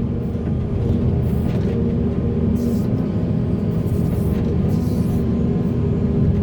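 Diesel engine of heavy earthmoving machinery running steadily under load, with short hissy bursts now and then.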